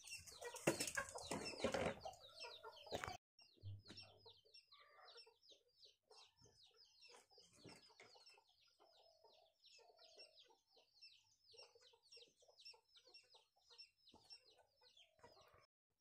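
Chickens clucking faintly, with many short calls throughout. A louder noise fills the first three seconds and cuts off abruptly.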